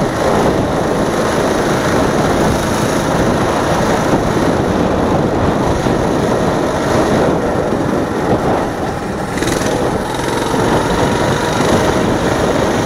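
Coleman CT200U-EX mini bike's 196cc single-cylinder four-stroke engine running steadily under way, easing slightly about eight seconds in before picking back up.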